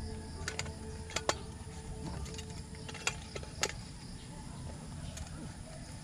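Sharp clicks and knocks of a portable camping gas stove and its gear being handled on a wooden table, about half a dozen in the first four seconds, the loudest about a second in and again near the middle.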